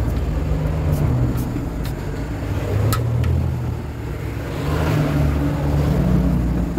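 Road traffic going past: a steady low engine rumble from cars and heavy vehicles, with a passing vehicle's tyre hiss swelling about five seconds in. A few light clicks early on.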